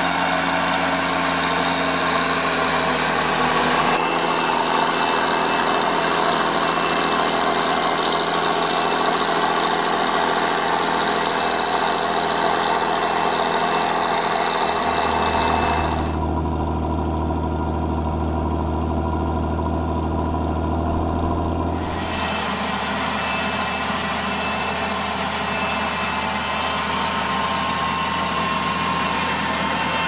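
Massey Ferguson 1200's Perkins six-cylinder diesel running steadily under load while pulling a four-furrow plough. For about six seconds in the middle it sounds muffled and deeper, with the high end cut off.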